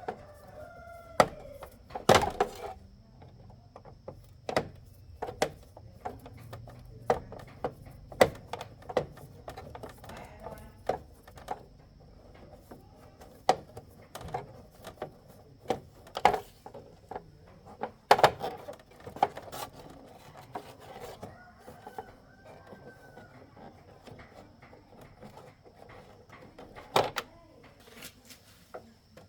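Irregular clicks and knocks of hand tools and parts being handled during motorcycle repair work, a few of them sharp and loud, with faint voices in the background.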